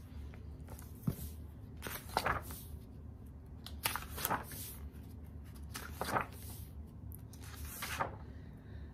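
Pages of a hardcover picture book being handled and turned: about five soft paper swishes spaced a second or two apart, over a low steady room hum.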